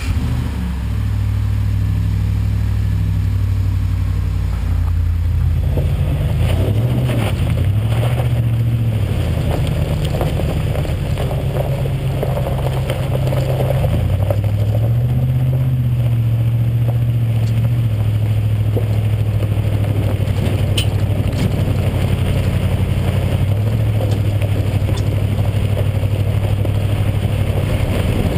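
2011 Ford SVT Raptor's V8 running through a Magnaflow exhaust, idling right after being started, then pulling away with the engine note rising and falling a few times as it accelerates.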